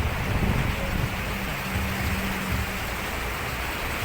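Wind buffeting the microphone over the rush of sea surf, a steady loud noise with a low rumble.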